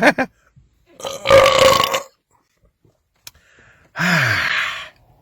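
A man belching twice after gulping soda. The first belch comes about a second in and lasts about a second at a steady pitch. The second comes about four seconds in and drops in pitch as it goes.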